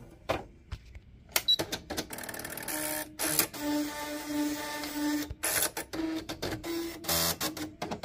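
A Nakajima WPT-160 electronic daisy-wheel typewriter running its power-on start-up. A series of sharp mechanical clicks is followed by a steady whirr of its print mechanism for a couple of seconds, then more clicks and shorter whirrs.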